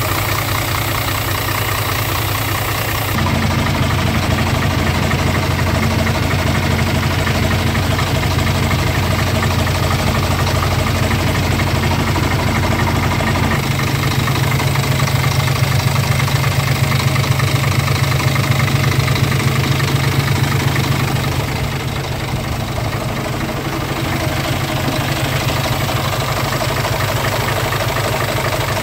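Scania R truck's inline six-cylinder diesel engine idling steadily, heard up close in the open engine bay.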